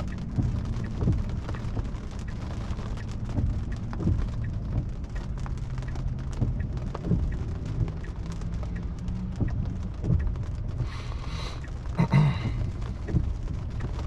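Rain hitting the roof and windshield of a car, heard from inside the cabin as scattered drops over a steady low hum. A brief, louder sound with a higher, ringing quality comes about eleven to twelve seconds in.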